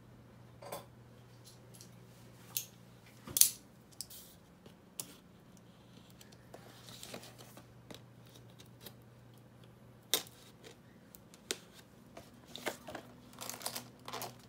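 Cardboard box being cut open: a knife slitting the seal along the lid, with scattered sharp clicks and taps from handling the box. The loudest tap comes about three and a half seconds in, another about ten seconds in, and several follow close together near the end.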